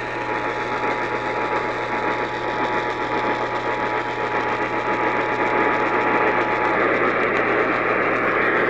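Emergency Alert System two-tone attention signal (853 and 960 Hz) received over AM radio, heard steadily under heavy static and hiss and cutting off about seven seconds in. The static and a low hum carry on after the tones stop.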